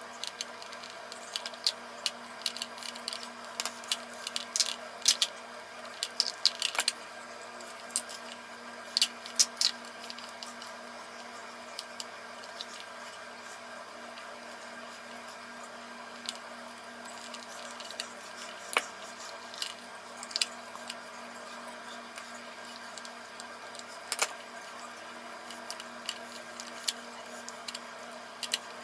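Scattered small metallic clicks and clinks as a screwdriver and metal lamp-socket parts (terminal screws, a threaded nipple, the socket shell) are handled and tightened. The clicks are densest in the first third, over a faint steady hum.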